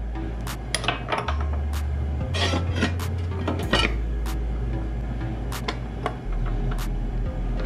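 Small metal parts of a chop saw clinking and rattling as the arbor flange, bolt and 14-inch steel-cutting blade are handled and fitted, busiest from about one to four seconds in. Background music with a steady beat and bass runs underneath.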